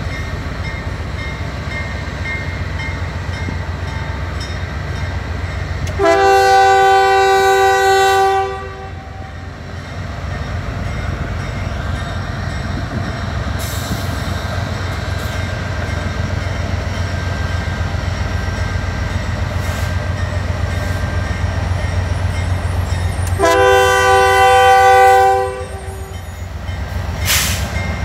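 Freight train running with a steady low rumble while the lead locomotive's multi-tone horn sounds two long blasts, one about six seconds in and one near the end. A brief sharp noise follows just before the end.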